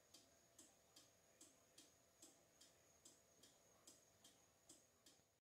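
Faint, steady ticking of a 1973 German cuckoo clock's movement running on its test after repair, a little over two ticks a second.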